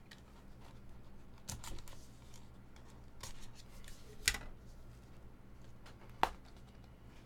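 Yellow utility knife slitting the seal on a cardboard trading-card box, then the box being turned over and its lid slid off, with soft scraping and rubbing of cardboard. Two sharp clicks about four and six seconds in stand out above the rest.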